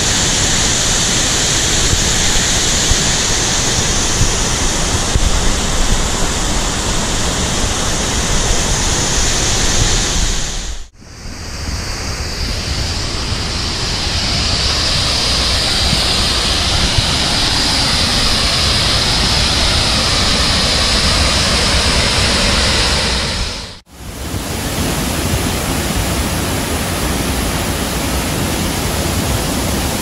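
Waterfall rushing: a loud, steady noise of falling water that drops out briefly twice at shot changes, about 11 and 24 seconds in.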